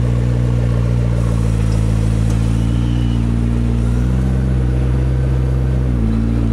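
McLaren P1's twin-turbo V8 idling steadily; its note shifts slightly about four seconds in and again about six seconds in.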